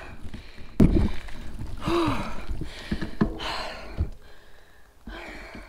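A woman breathing hard in heavy gasping breaths, about three in a row, winded from pushing a loaded touring bicycle up a steep hill. A sharp knock a little under a second in.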